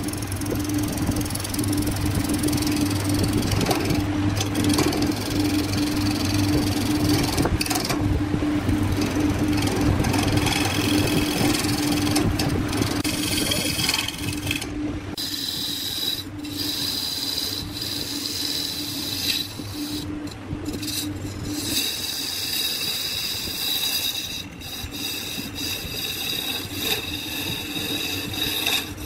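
Wood lathe running, with a hand-held turning tool scraping into a large spinning wooden blank. About halfway through, the low hum drops away and a steady high tone comes in as the cut goes on.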